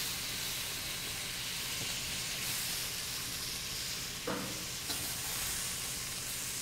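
Food sizzling in a hot pan in oil, a steady hiss, with a brief clink about four seconds in.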